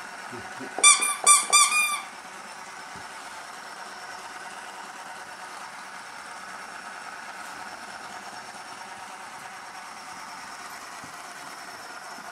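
A squeaky dog toy squeezed in four quick, high squeaks about a second in, followed by a steady faint background hum.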